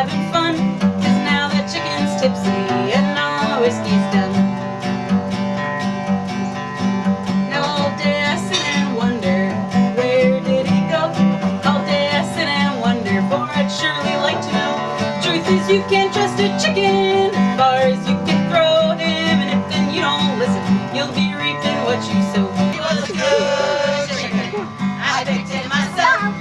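Instrumental break in a country song: acoustic guitar picking and strumming a steady tune, with no vocals.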